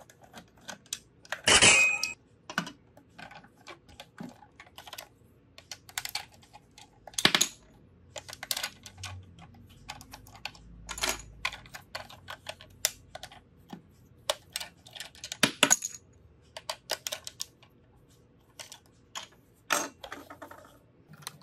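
Hard plastic toy train parts clicking and knocking as a toy Thomas the Tank Engine is taken apart by hand with a plastic toy screwdriver and its wheels are pulled off. Irregular clicks throughout, the loudest knock about two seconds in.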